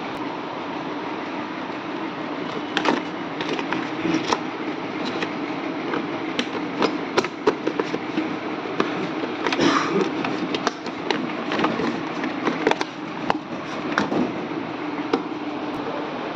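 A steady hum with many irregular sharp clicks and knocks over it, most of them from about three seconds in.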